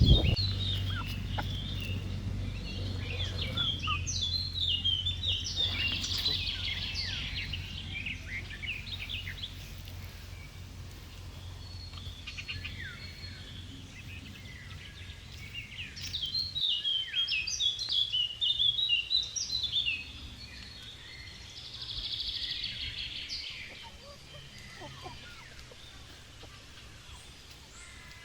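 Birds chirping and singing, in bursts of quick high notes with pauses between. A low steady hum runs underneath and stops suddenly about two-thirds of the way in.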